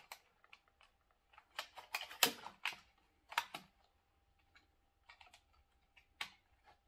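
Hard plastic clicks and knocks from handling a toy RC car's underside as its charging cord is pushed down into the battery compartment, with a cluster of louder knocks about two seconds in and another shortly after.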